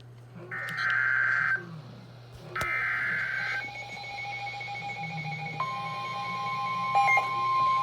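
Emergency Alert System SAME header: the last two of its three digital data bursts, each a harsh buzzing screech about a second long with a second's gap. A steady electronic alert tone then starts, and a second, slightly higher tone joins about two seconds later and holds.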